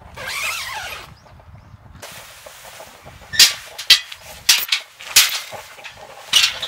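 A brief rustling scrape, then from about halfway in a run of sharp knocks, roughly two a second, some in quick pairs.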